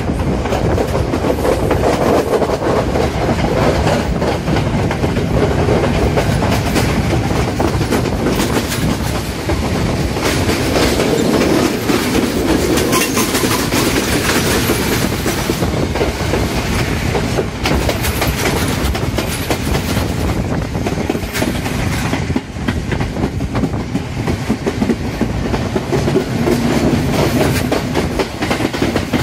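Passenger train running along the track, heard from an open carriage window: the wheels clatter over the rails under a steady rush of running noise.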